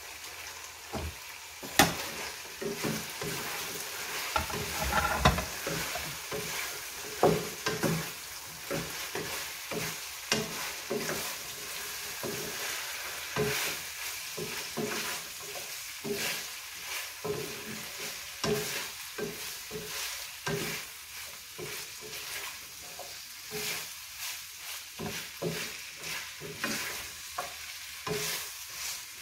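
Sliced potatoes and carrots sizzling in a frying pan, stirred with a wooden spatula: repeated scraping strokes over a steady sizzle. A sharp knock about two seconds in is the loudest sound.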